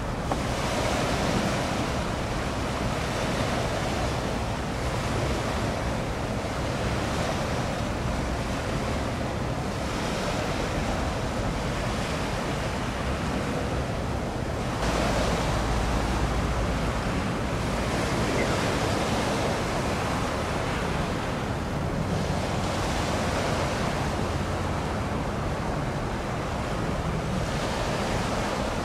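Sea water washing in swells every couple of seconds, with wind buffeting the microphone; a stronger gust of wind on the microphone about halfway through.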